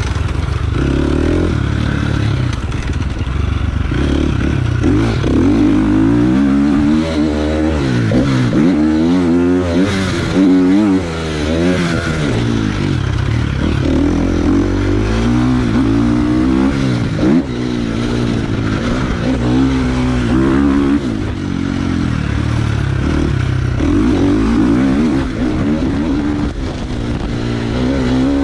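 Dirt bike engine heard from the rider's chest-mounted camera, revving up and falling back again and again as the throttle is opened and closed around a motocross track.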